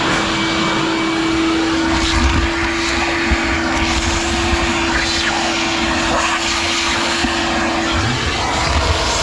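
Wet/dry shop vacuum running steadily, its motor whining at one even pitch over a rushing of air, with a few small knocks along the way.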